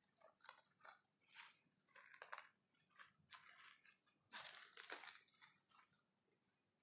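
Faint crinkling and rustling of plastic cling film being handled and peeled back off a sheet of rolled-out dough, in short irregular crackles that are loudest about four and a half seconds in.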